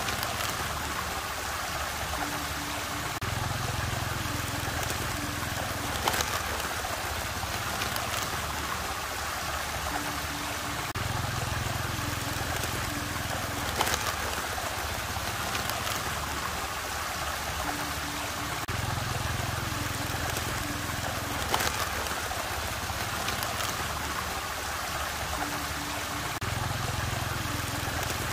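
Water swirling and rushing steadily in a whirlpool vortex. A low hum swells in for a few seconds about every seven to eight seconds, with a short click in each cycle.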